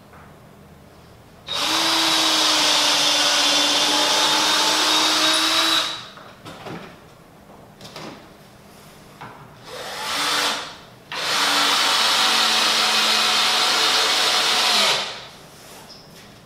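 Cordless drill running at the wooden chair frame in two long, steady runs of about four seconds each, with a short burst between them.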